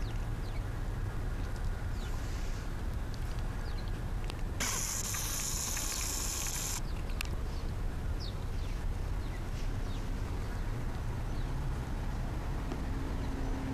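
Outdoor backyard background: a steady low rumble with faint, scattered chirps of small birds. About a third of the way in, a loud hiss lasting about two seconds starts and stops abruptly.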